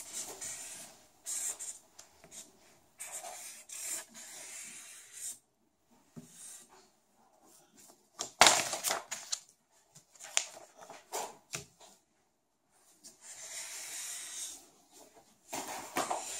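Felt-tip marker scratching across paper on a table in strokes of about a second each, with pauses between them, as a child draws lines. A sharp tap about eight seconds in.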